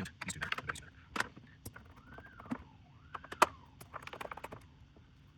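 Scattered small clicks and taps of screws, plastic and circuit-board parts being handled while the memory expansion board is worked loose from an AKAI MPC 60. About two seconds in, a faint tone glides up and down twice.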